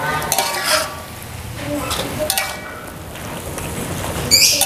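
A metal spatula scraping and clinking against a metal wok as mushrooms are stir-fried, in uneven strokes, with a louder ringing sound near the end.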